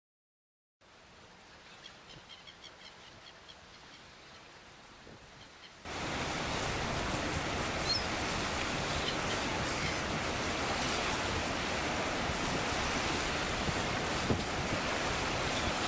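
Water rushing and splashing in the bow wave of a large tanker as its hull pushes through the sea, mixed with wind noise on the microphone. Faint and with a few small chirps at first, it jumps to a loud, steady rush about six seconds in.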